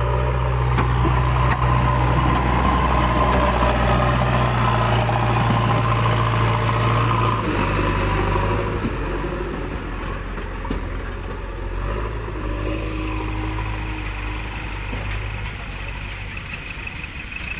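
JCB 3DX backhoe loader's diesel engine running steadily. It is louder for the first seven seconds or so, then its note shifts and it runs quieter for the rest.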